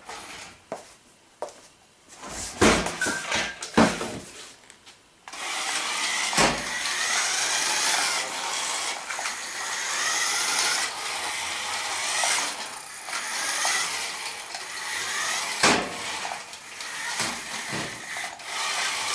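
A few scattered knocks and clatters from a 1:24 scale New Bright Grave Digger RC monster truck. About five seconds in its small electric motor and plastic gears start a steady high whirr as it drives, the pitch wavering, with a few more knocks near the end.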